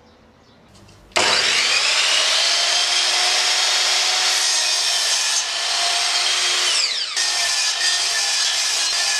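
A sliding compound mitre saw starts about a second in and runs with a steady high whine while its blade cuts through a small wooden block. The pitch dips briefly about seven seconds in.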